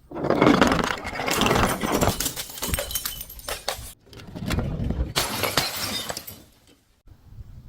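Glass bottle being crushed, crunching and shattering with dense crackling in two bouts; the first stops suddenly about four seconds in, and the second fades out near the end.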